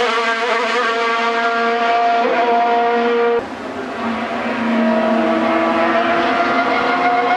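Racing car engine at high revs as it climbs a hillclimb course. The pitch holds and rises slightly, drops suddenly about halfway through, then climbs again as the car accelerates.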